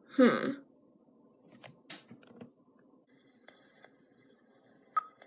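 A short human vocal sound falling in pitch right at the start, then a few faint clicks. About halfway in, faint sound from the laptop's speakers begins as an online video starts to play.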